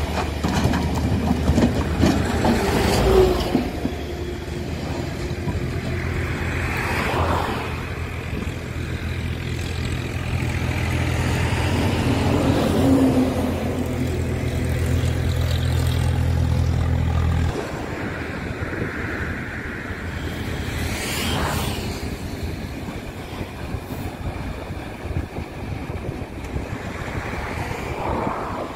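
Tata Hitachi hydraulic excavator's diesel engine working under load, with loose stones crashing into a steel tipper truck bed a few times. A steady low engine drone cuts off a little past halfway.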